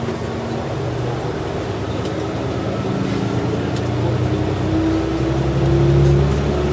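Single-car diesel railcar heard from inside the carriage, its engine note rising steadily and growing louder as it accelerates.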